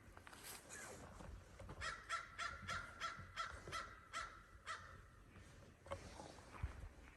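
A bird calling in a quick series of about nine short, harsh calls, roughly three a second, starting about two seconds in. Soft footsteps on a trail sound underneath.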